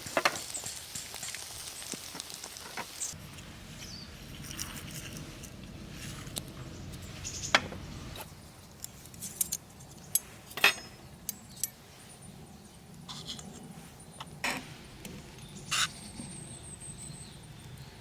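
Camp gear being handled: scattered light clinks and knocks, a dozen or so spread irregularly, over a low steady background.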